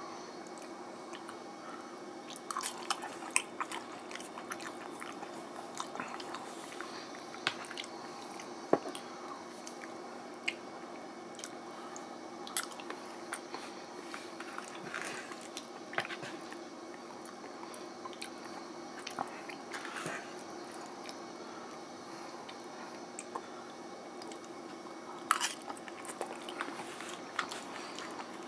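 Close-up chewing of microwaved garlic sesame noodles with beef, with scattered sharp clicks and smacks throughout, over a steady background hum.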